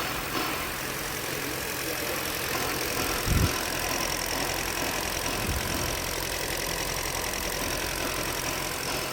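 Hyundai Verna petrol car engine idling steadily, with two brief low thumps, the louder one about three seconds in and a weaker one about two seconds later.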